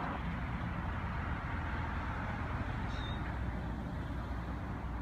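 Steady low outdoor rumble, with one short high chirp about three seconds in.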